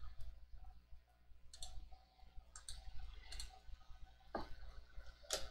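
Faint, scattered clicks of a computer mouse and keyboard: about six separate short clicks roughly a second apart, over a steady low hum.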